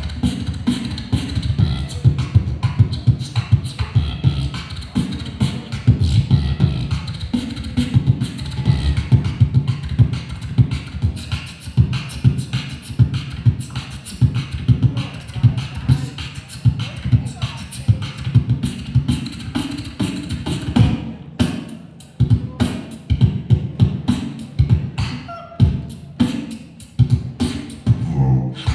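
Live beatboxing amplified through a handheld microphone: a fast, steady rhythm of deep kick-drum thumps and sharp snare and hi-hat clicks made with the mouth, with a brief break about three-quarters of the way through before the beat picks up again.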